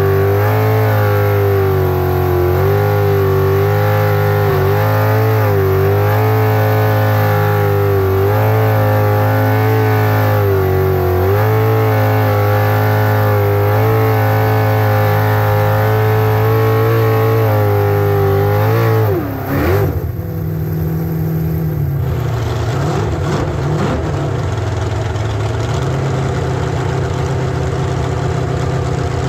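V8 jet sprint boat engine at high revs, its pitch rising and falling repeatedly as the throttle is worked through the turns. About two-thirds of the way through the revs drop off sharply and the engine settles to a lower, steady run as the boat comes off the throttle.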